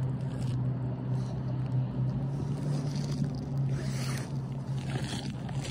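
Steady low hum of a motor, a single pitch that neither rises nor falls. Brief rustling noises come over it about three and five seconds in.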